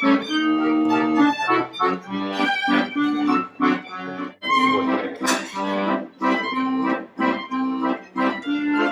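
Instrumental music: a melody of short, changing notes over steady held low notes.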